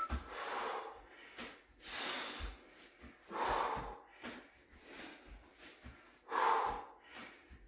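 A man breathing hard from exertion, with forceful, noisy breaths. Four stronger ones stand out and fainter breaths fall between them.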